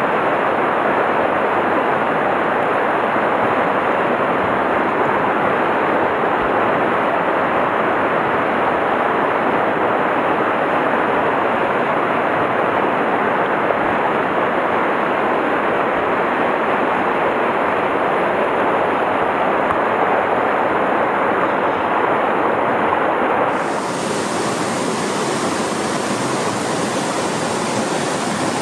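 Mountain stream rushing over boulders and small cascades: a steady, full white-water rush. About 23 seconds in it changes suddenly to a slightly quieter, hissier water sound.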